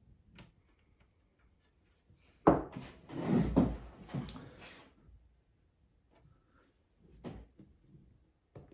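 A laptop and its screen parts being handled during a screen swap: a sharp knock about two and a half seconds in, then a couple of seconds of knocking and scraping, and a shorter knock near the end.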